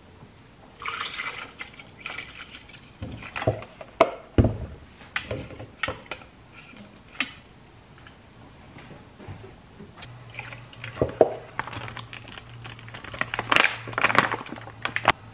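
Milk poured into a plastic blender jar, then a series of sharp knocks and clinks as the jar and containers are handled on a countertop. Near the end comes a louder cluster of rustling from a plastic bag of yogurt powder being opened and scooped.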